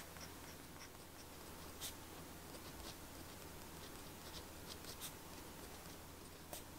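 Fountain pen nib scratching faintly across dotted journal paper as small handwriting is written, with a few sharper ticks as strokes start and end.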